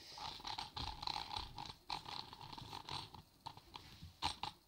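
Tiger-shaped manual pencil sharpener with its back wheel turned by hand, grinding a pencil in a quick rhythmic scrape of about four to five strokes a second. A few sharp clicks come near the end.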